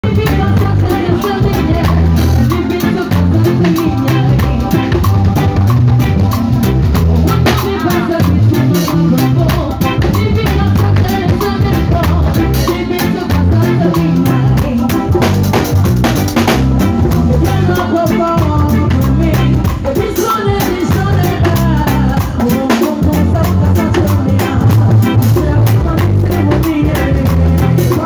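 Live band playing an upbeat groove on drum kit, guitar and keyboard, with the drum kit prominent and a pulsing bass line underneath. Raw, unmixed sound taken close to the drummer.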